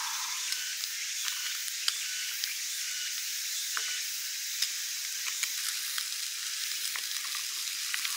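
Food frying in a small pan on a portable canister gas stove: a steady oily sizzle with scattered small pops and clicks.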